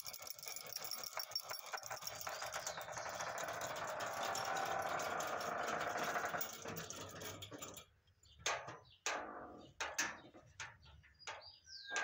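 Masking tape being pulled off the roll and pressed onto cardboard: a continuous crackling rip full of fine clicks, louder in the middle. About two-thirds of the way through it stops abruptly, and about eight short, sharp separate strokes on the cardboard follow.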